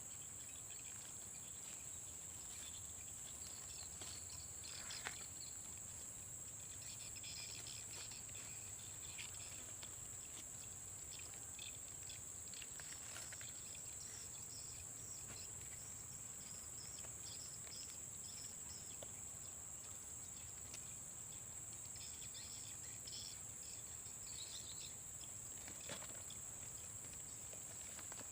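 Forest insects chirring in a steady high drone, with scattered short chirps over it and a couple of faint clicks.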